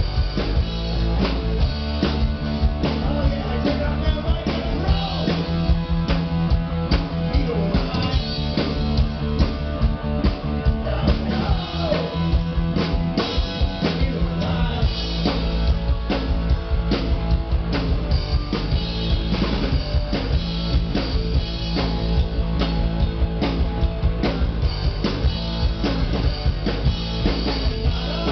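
Live rock band playing: a drum kit keeping a steady beat under guitars and bass, with a singing voice over them at times.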